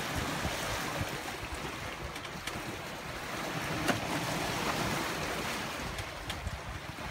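Steady rush of sea water and wind around a sailboat, with a sharp click about four seconds in.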